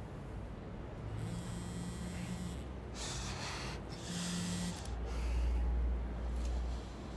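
A mobile phone buzzing on vibrate in a trouser pocket, in several short pulses, with cloth rustling as it is pulled out. A low rumble comes in about five seconds in.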